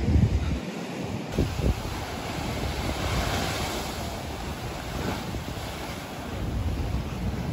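Sea waves washing against the shore, the hiss swelling about three seconds in, with gusty wind buffeting the microphone.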